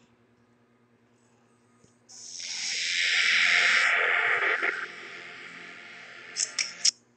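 A long hiss that starts about two seconds in, is loudest a second or two later and then fades, followed by a few short clicks near the end.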